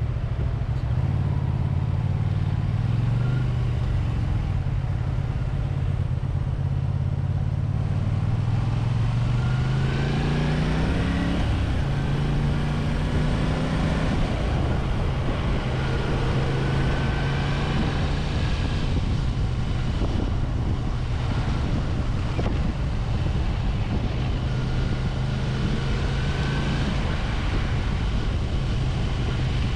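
A Honda VT250F Integra's 250 cc V-twin engine running as the motorcycle is ridden in traffic. The revs rise steadily from about eight seconds in and drop at a gear change near eleven seconds, then the engine settles into steady running.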